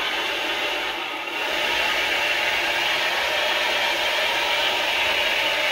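Electric pump whirring steadily while it circulates hot cleaning water through the brewing equipment's CIP wash loop, running with the valve open so no pressure builds. It gets a little louder about a second and a half in.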